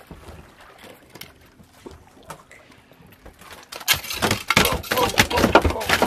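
A hooked fish being landed into a boat: a few faint clicks, then about four seconds in a rapid, irregular burst of loud knocks, thumps and splashing.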